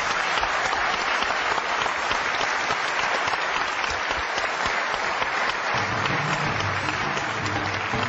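Audience applauding steadily. Low music comes in beneath the clapping about six seconds in.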